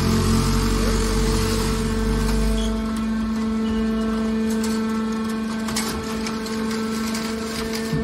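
Hydraulic scrap-metal baler's pump unit running with a steady drone while the ejector ram pushes a compressed bale of scrap aluminum out of the discharge door. A deep rumble under the drone fades about three seconds in, and scattered clicks and scrapes of the crushed metal follow in the middle.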